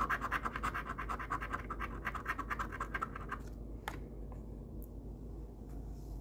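Scratch-off lottery ticket being scratched in quick, rapid strokes that stop about three and a half seconds in, followed by a single sharp click.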